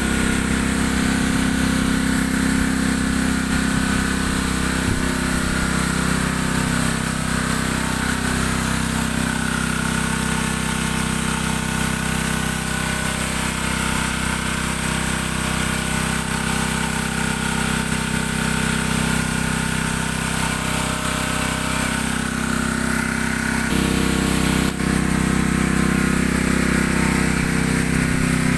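Boat engine running steadily, a constant low hum with a whine above it, growing louder and fuller about 24 seconds in.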